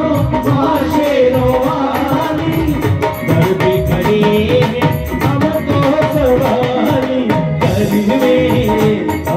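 Live Indian devotional band music: an electronic keyboard plays a gliding melody over steady dhol drumming and other percussion, with little or no singing.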